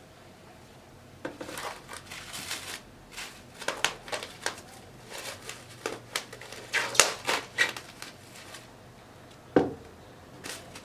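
Plastic cling film crinkling and rustling in irregular bursts as a ball of dough is wrapped in it, then a single thump near the end.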